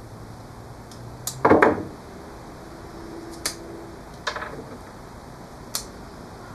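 A few sharp clicks and knocks as a knife and small wooden pieces are handled on a wooden workbench. The loudest is a short clatter about a second and a half in, followed by lighter taps.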